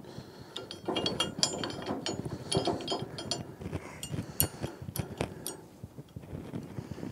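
Irregular metal clinks and clicks of a steel top link pin and its clip being worked into place by hand on a tractor's three-point hitch and a rotary cutter's A-frame.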